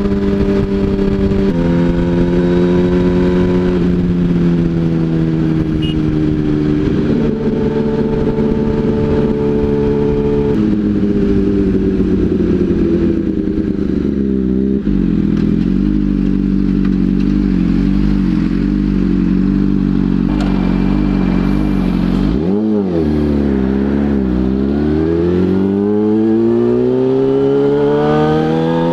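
2007 Yamaha R1's inline-four engine under way: its pitch steps through several gear changes, settles to a steady low note through the middle, then after a brief blip rises steadily as the bike accelerates near the end.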